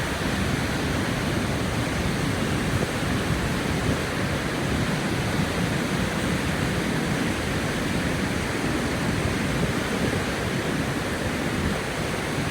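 Steady rush of Vernal Fall's water and the river below it in spring flow: an even, unbroken roar of falling and tumbling water.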